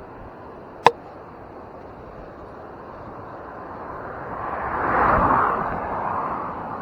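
A vehicle passing by, its rushing noise swelling to a peak about five seconds in and then fading. A single sharp click about a second in.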